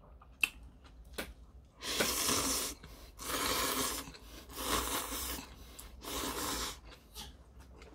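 A person slurping stir-fried ramen noodles off chopsticks: four loud, airy slurps, each under a second, in the second half. A sharp click comes about half a second in.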